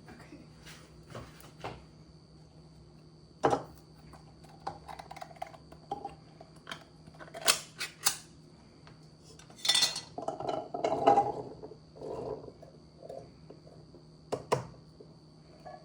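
Dishes and kitchen utensils clinking and knocking: scattered single clinks, then a busier clatter about ten seconds in, over a faint steady hum.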